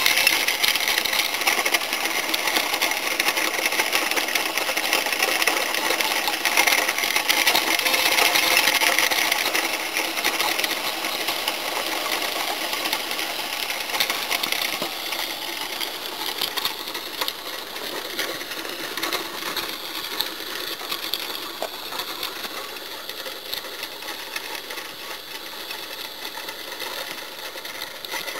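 Small drive motor of a working model oil drilling rig running steadily as the drill stem bores into wet ground, a continuous whirring buzz that grows gradually fainter through the second half.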